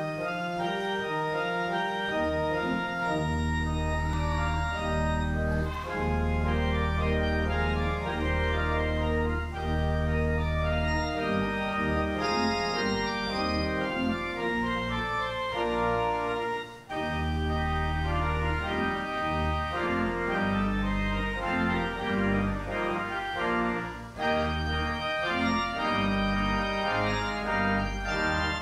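Church organ playing sustained chords over deep pedal bass notes, with a brief break about seventeen seconds in.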